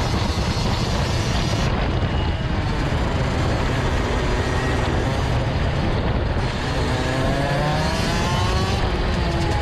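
Rotax Max DD2 kart's 125cc two-stroke single-cylinder engine running at racing speed, heard from on board the kart with heavy low rumble. In the last few seconds the engine note climbs steadily as the kart accelerates.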